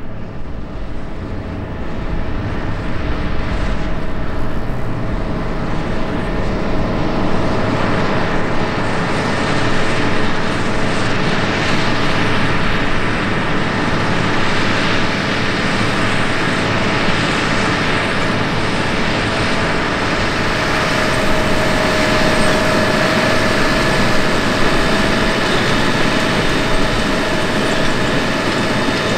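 John Deere 8RX 410 four-track tractor running steadily under load while pulling a 36-row DB60 corn planter: a steady engine drone with a few held whining tones, getting a little louder about two seconds in.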